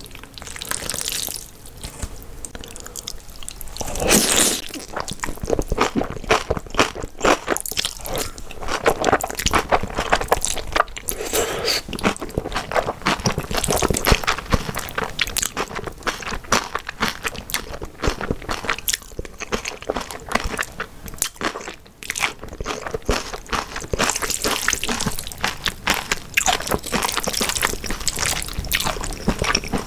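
Close-miked eating: wet, crunchy chewing of spicy cabbage kimchi and mouthfuls of black bean noodles, with many quick crackles and a louder crunch about four seconds in.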